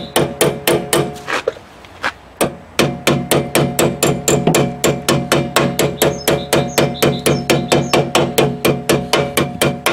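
Hammer tapping a new metal dust cap onto a Renault Twingo's rear wheel hub: quick, even light strikes about five a second, each leaving a ringing tone. They pause about a second and a half in and resume near three seconds.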